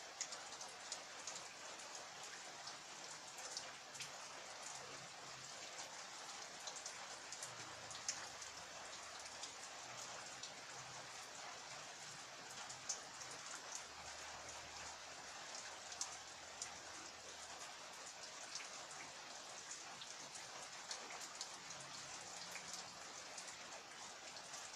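Steady rain falling, with many scattered sharper drop impacts.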